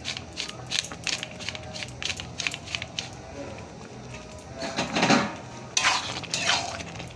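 A spatula stirring and scraping in a cooking pan of thick chickpea curry: quick light taps and clicks at first, then louder scrapes against the pan about five and six seconds in.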